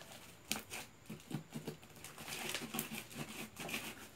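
Hands turning fluffy slime out of a plastic tub and handling it: soft, sticky crackling with scattered clicks from the slime and the tub.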